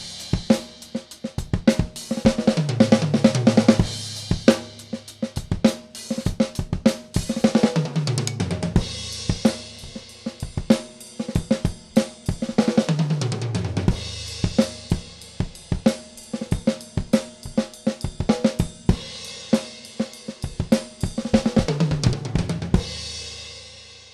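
Gretsch New Classic drum kit with a 14" Mapex Saturn snare being played: a steady groove of snare, bass drum and hi-hat with cymbal crashes. About four times, fills across the toms step down in pitch.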